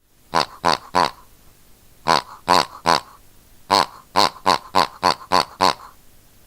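Rubber squeaky dog toy squeezed in quick, sharp squeaks: three, then three more, then a run of seven at about three a second.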